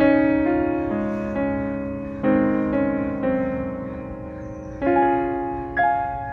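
Slow background piano music: chords struck every second or two and left to ring and fade.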